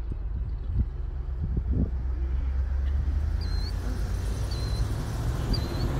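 Steady low outdoor rumble, of the kind that wind on the microphone or road traffic makes. Three short high chirps come about a second apart in the second half.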